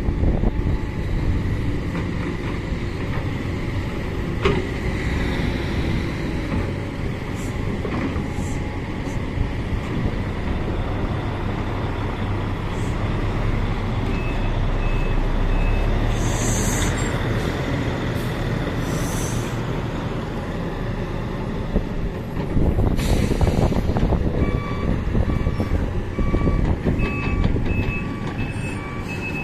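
Sumitomo 350 tracked excavator's diesel engine and hydraulics running under load as it digs and swings, with a few knocks of the bucket early on. A few short air hisses come in the second half, and an alarm beeps in short, evenly spaced pulses from about halfway on.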